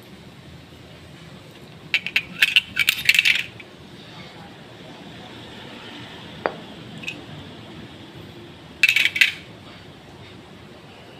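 Small steel pistol parts clinking and clattering against each other as they are handled: a quick flurry of metallic clinks about two seconds in, a single click near the middle, and another short burst near the end.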